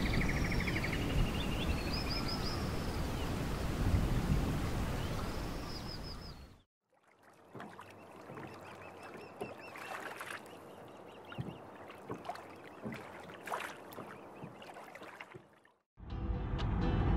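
Steady rush of falling water with birds chirping and trilling over it, cut off sharply about six and a half seconds in. After a moment of silence comes a much quieter stretch of faint ambience with scattered clicks, which also cuts off, and a louder noise begins near the end.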